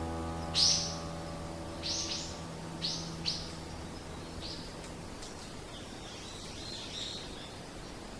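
Small songbird chirping: about six short, high notes, each sliding downward, in the first five seconds, over a faint steady outdoor hiss. The last held notes of the music fade out beneath them.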